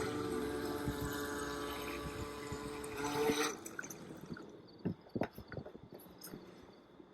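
A small motor whirring steadily over a wash of noise, cutting off about three and a half seconds in, followed by a few faint clicks.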